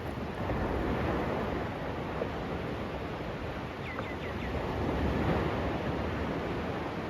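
Sea waves washing onto the beach, a steady rushing surf that swells and ebbs, with wind on the microphone. A bird gives four quick high chirps about four seconds in.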